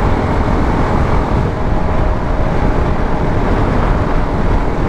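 Motorcycle cruising steadily at highway speed: a constant rush of wind on the microphone mixed with engine and road noise.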